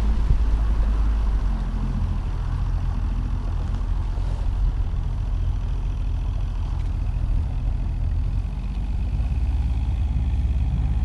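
Outboard motor running steadily as it pushes a fishing boat across the water, a low even hum with water rushing along the hull.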